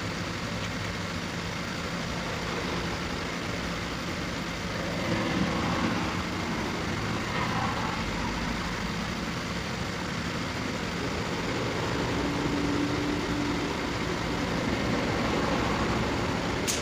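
Heavy truck's diesel engine running steadily, swelling a little about five seconds in and again near the end.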